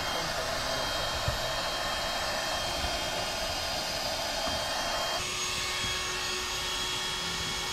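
Electric air pump blowing into an air mattress with a steady whir. About five seconds in, its note changes and a steady hum comes in as the mattress fills out firm.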